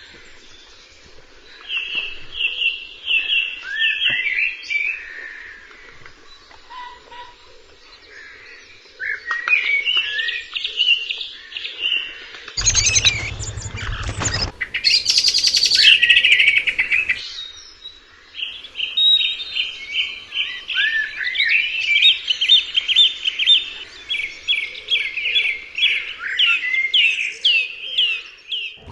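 Several songbirds singing, with runs of quick repeated chirping notes and trills. About halfway through, a burst of noise lasting a couple of seconds briefly covers the song.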